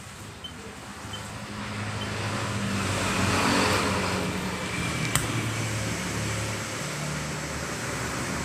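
A motor vehicle's engine running, swelling to its loudest about three to four seconds in and then holding steady, with one sharp click about five seconds in.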